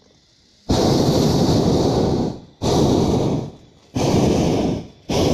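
Hot-air balloon's propane burner firing in four blasts of rushing noise, each starting abruptly; the first lasts about a second and a half, the others under a second, with short gaps between.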